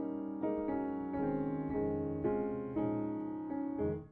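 Background music played on piano, a run of held notes.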